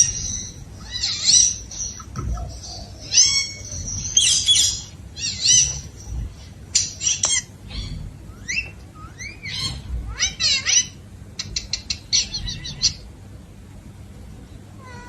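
A pet parrot calling and chattering in a quick string of short, high squawks and whistles, many of them sliding up or down in pitch. The calls stop about 13 seconds in.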